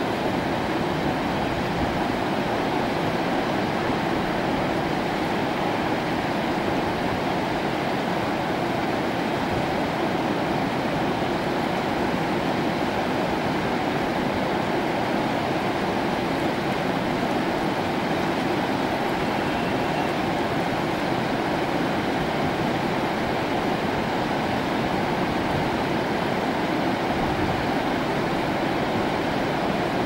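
Whitewater river rapids rushing over boulders: a steady, even rush of fast water.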